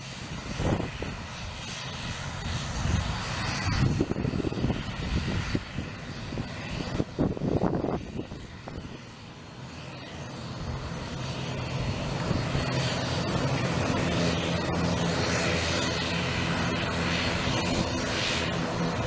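An ATR 72-600's turboprop engines running as the aircraft taxis: a steady propeller drone with several hum tones, growing louder through the second half.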